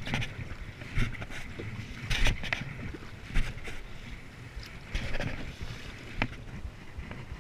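Kayak paddle strokes splashing in the sea, an uneven splash about every second, with water against the plastic hull over a steady wash of wind and water.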